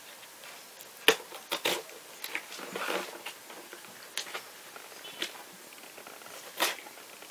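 A cardboard parcel being opened by hand: scattered clicks, scrapes and rustles of fingers picking at packing tape and handling the box, with a sharp click about a second in.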